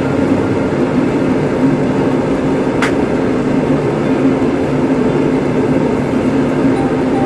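A kitchen fan running with a steady hum and a low drone. One sharp click about three seconds in.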